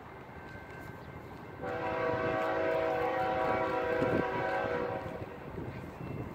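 Diesel locomotive's air horn sounding one long, steady chord of several notes, beginning about a second and a half in and lasting about three and a half seconds, over the low rumble of the approaching train.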